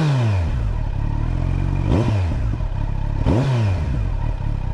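Warm Kawasaki Z900 inline four-cylinder engine with an Akrapovic slip-on exhaust, idling and blipped three times about a second and a half apart, each rev dropping straight back to idle.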